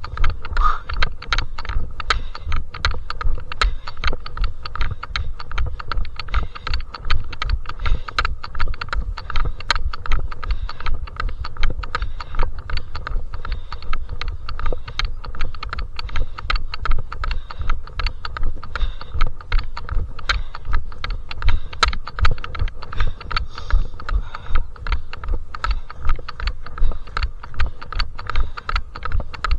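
Footsteps of a trail runner climbing a steep mountain path: a steady run of footfalls and small knocks.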